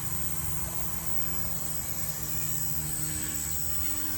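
Blade 150S electric RC helicopter hovering: a steady high-pitched motor whine over the hum of the spinning rotors. Wind rumbles on the microphone underneath.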